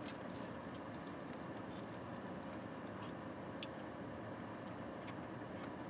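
Faint chewing with a few soft mouth clicks over a steady low hum of a car interior.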